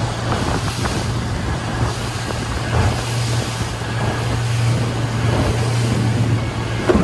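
Motorboat under way: the engine's steady drone, with wind buffeting the microphone and water splashing against the hull.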